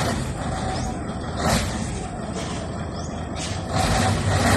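Flatbed truck's diesel engine running as the truck pulls slowly away, with two brief hisses about a second and a half apart and again near three and a half seconds. The engine gets louder near the end.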